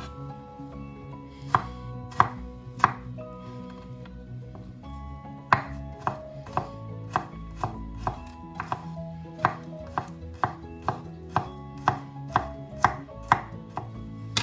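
Chef's knife chopping garlic cloves on a wooden cutting board: three separate chops, a pause, then a steady run of chops about two a second.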